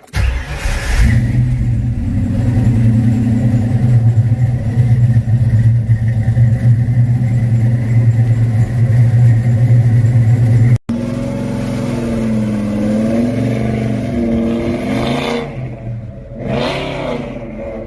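Fox-body Ford Mustang's engine running loud and steady, then, after a cut about eleven seconds in, its revs rising and falling as the car is driven.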